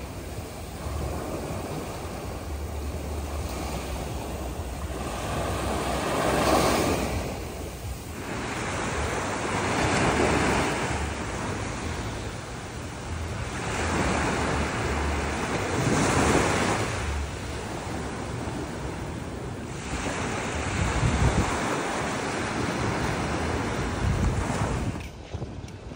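Ocean surf washing onto the beach, swelling and ebbing every few seconds, with wind rumbling on the microphone. It cuts off suddenly near the end.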